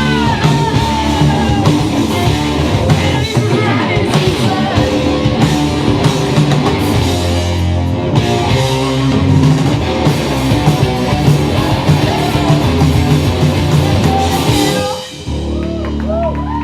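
Loud heavy rock music with distorted electric guitars, a drum kit and a singing voice. The music drops to a quieter passage about fifteen seconds in.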